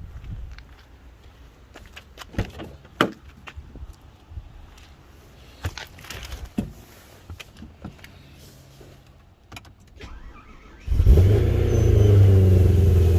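Scattered clicks and knocks, then about eleven seconds in the supercharged BMW E92 M3's V8 fires and catches at once and settles into a steady idle. The quick start after the corroded connector was cleaned suggests the no-start fault is cured for now.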